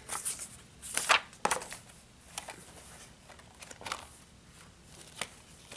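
Rustling and brief scrapes of a cardboard Blu-ray box set being handled and its panels opened, in a series of short separate sounds.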